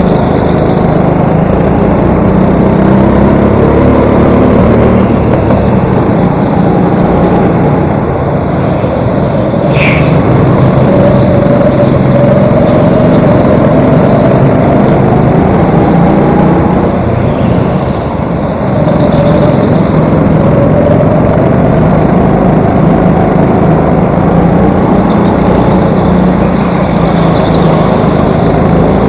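Go-kart engine running hard close up, its pitch rising and falling as the kart accelerates and lifts through the corners. There is a brief sharp click about ten seconds in.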